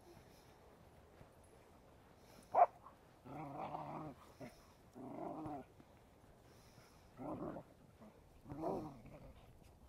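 Puppies play-growling as they wrestle: one sharp yip about two and a half seconds in, then four short growling bouts a second or two apart.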